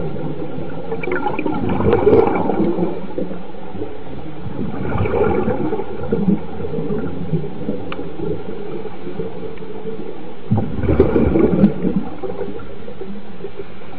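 Underwater bubbling and gurgling over a steady watery rush, swelling in surges about two, five and eleven seconds in.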